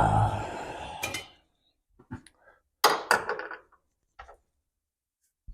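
Steel sockets and hand tools clinking and clattering as they are rummaged through in search of a deep 15 mm socket. There is a busier rattle in the first second, then a handful of separate metallic knocks.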